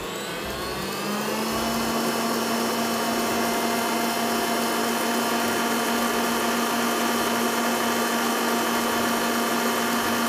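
Electric stand mixer whisking egg whites: the motor whirs up in pitch as it speeds up over the first second or so, then runs steadily at high speed while the whites beat to a froth.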